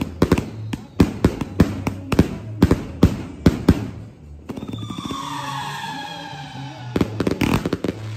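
A 150-shot 'Master Rage' firework cake firing: a rapid string of bangs from shots and bursts for about four seconds, then a falling whistle-like tone for about two seconds, then more bangs near the end.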